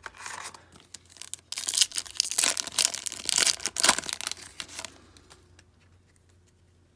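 A trading-card pack wrapper being torn open and crinkled, a crackly tearing that is loudest for about three seconds and then dies away.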